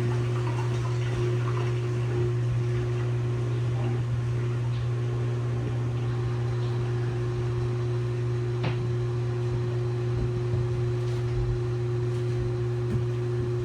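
LG WT7600HVA top-load washing machine running mid-cycle: a steady low motor hum with a higher steady tone over it, and a light click about nine seconds in.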